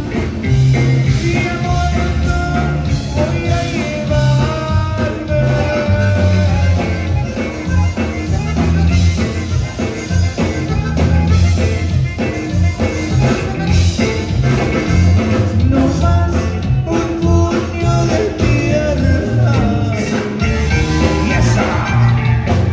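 Live conjunto band playing a dance number: accordion, electric guitar, electric bass and drum kit with a strong, steady bass line and beat.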